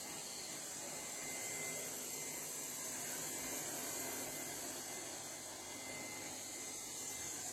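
LEFANT robot vacuum running: a steady hiss from its suction fan with a faint even hum beneath.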